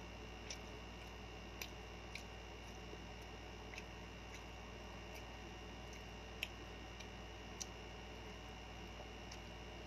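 Close-up eating sounds: about six short, sharp wet clicks and smacks from chewing and from fingers picking up rice and meat by hand, scattered over a steady low hum.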